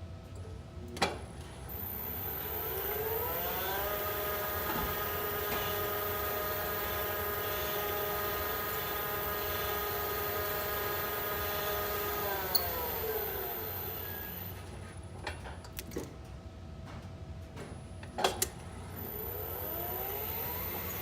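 A lift's electric drive motor whining up in pitch, running steady for about eight seconds, then winding back down. There is a sharp click just before it starts, a few clicks after it stops, and it starts winding up again near the end.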